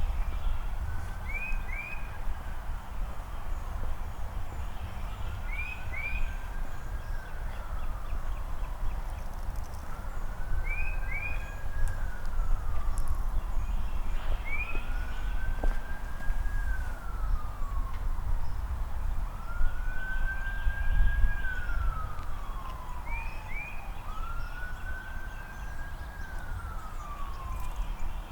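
Siren wailing: a slow rise, hold and fall that repeats about every four and a half seconds, each cycle led by two short high chirps.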